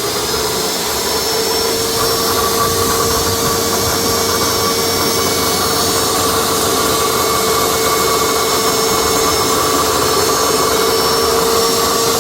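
Table saw running at full speed with a steady whine while a small piece of wood is cross-cut.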